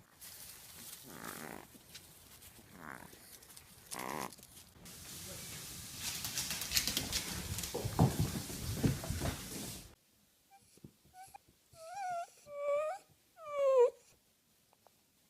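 A dog giving a few short, wavering, high-pitched whining calls near the end, after several seconds of uneven rustling and bumping noise.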